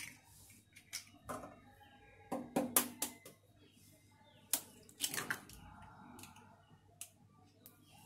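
A hen's egg being cracked open over a bowl: several sharp taps and cracks of shell, loudest about two and a half seconds in, with more clicks around five seconds in as the shell is broken apart.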